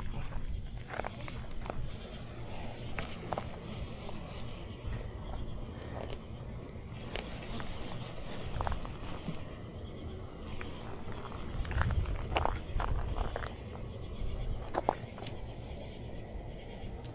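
Night insects, crickets or katydids, chirring steadily as a high continuous band that drops out briefly a couple of times. Scattered light knocks and clicks sound over it.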